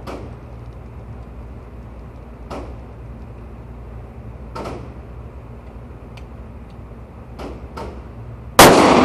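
A few light clicks of cartridges being pressed into a pistol magazine over a steady low hum, then a single loud pistol shot near the end that echoes and rings in the indoor range.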